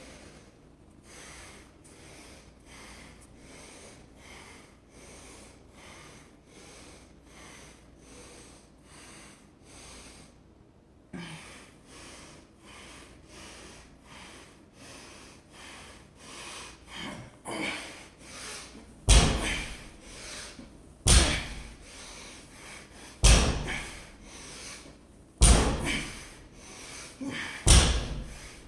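Loaded barbell set down on the floor during deadlift reps: five heavy thuds about two seconds apart, starting past the middle.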